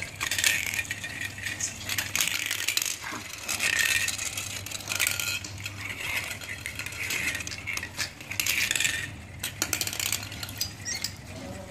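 Plastic Beyblade-style spinning tops whirring and rattling on a hard stone floor, with repeated sharp clicks and clatters as they knock into one another.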